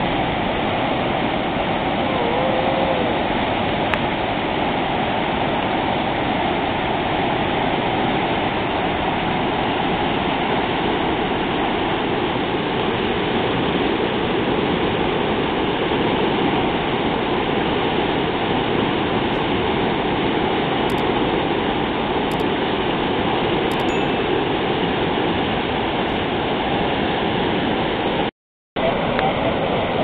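Fast white-water river rapids rushing steadily, cutting out for a moment near the end.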